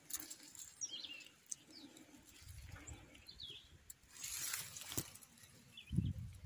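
Rustling and scraping of soil and dry grass while an armadillo is held and shifts at the mouth of its burrow, with a louder burst of scraping about four seconds in, a sharp knock near five seconds and a thump at about six. A bird calls short chirps in the background several times.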